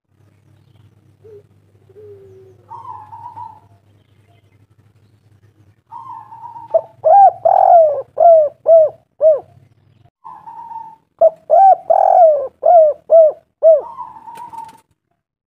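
Spotted dove cooing: two song phrases, each a softer opening coo followed by a quick run of about six short, loud coo notes.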